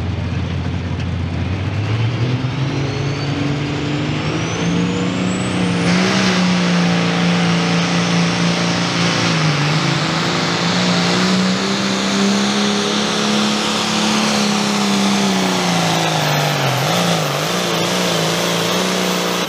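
Turbocharged diesel engine of a Hot Farm class Ford pulling tractor (466 cubic inch, A pump) at full throttle under load, dragging a weight-transfer sled. The engine's pitch climbs over the first few seconds, then holds high with brief dips. A turbocharger whine sweeps quickly up to a very high, steady whistle.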